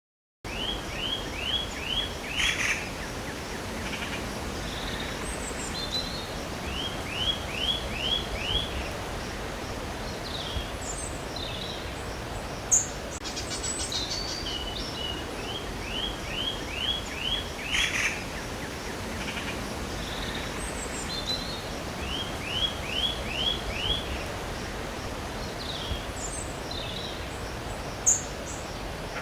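Songbirds singing outdoors. One bird repeats a phrase of about five quick, falling whistles every several seconds, and other chirps sound in between. A steady low background hiss runs underneath, broken by a couple of sharp clicks.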